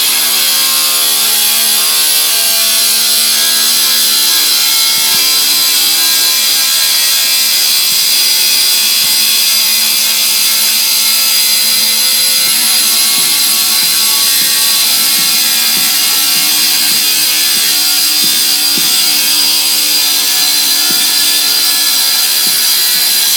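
Circular saw running and cutting without a pause: a loud, steady, high-pitched whine with a rasping edge.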